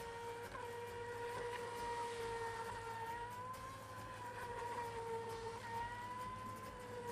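Brushless electric motor of a Rage Black Marlin RC speedboat whining steadily at speed, the pitch wavering slightly as the boat turns.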